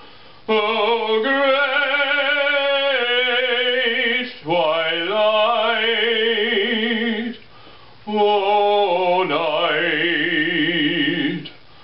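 A man singing solo in an operatic style, with wide vibrato on long held notes. Three long phrases are split by short breaths, about half a second in, past halfway and near the end.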